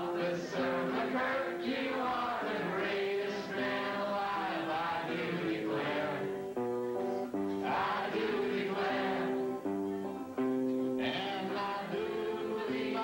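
A man singing a comic song, accompanying himself on guitar: steady chords and held notes under his voice.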